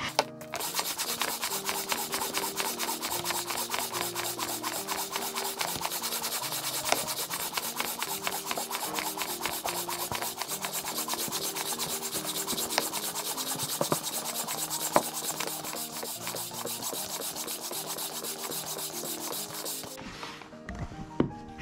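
Dual-action hand pump inflating an inflatable paddle board, sped up: fast, even rasping pump strokes that stop suddenly near the end. Background music with a bass line underneath.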